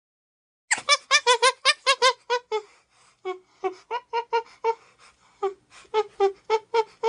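A chimpanzee calling in a rapid series of short, high-pitched calls, starting about a second in. The calls come about five a second at first, then slow a little.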